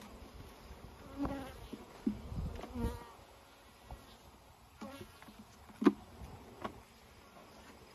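Honeybees buzzing around an opened hive, a few bees flying close past with brief passing buzzes. Several sharp wooden knocks from hive frames and boxes being handled, the loudest about six seconds in.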